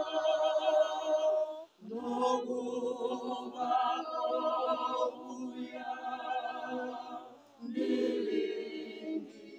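A choir of voices singing a hymn unaccompanied, in held phrases with short breaks about two seconds in and again about seven and a half seconds in.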